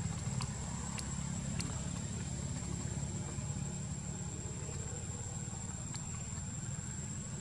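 Outdoor ambience: a steady high-pitched insect drone over a low rumble, with a few faint clicks in the first couple of seconds and one more near the end.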